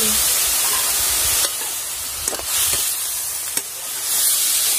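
Chopped banana stem and prawns sizzling in oil in a metal kadai while a metal spatula stirs them, with a few sharp scrapes and knocks of the spatula against the pan in the middle.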